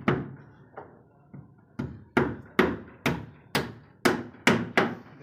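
Hammering: about ten sharp strikes, the first few lighter and spaced out, then heavier and steady at roughly two a second.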